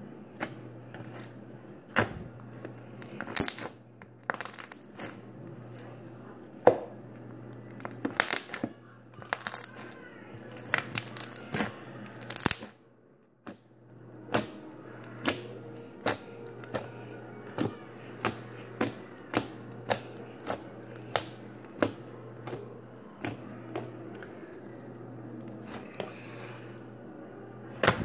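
Slime being squished and stretched by hand, making a string of sharp clicks and pops, irregular at first and then about two a second for a stretch in the middle, over a low steady hum.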